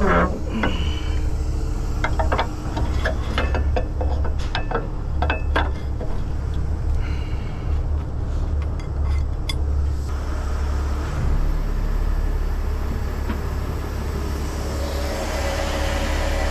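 Heavy rotator tow truck's diesel engine running steadily, with a string of sharp metal clinks and rattles of chain and hooks being handled over the first ten seconds. Near the end a rushing hiss rises over the engine.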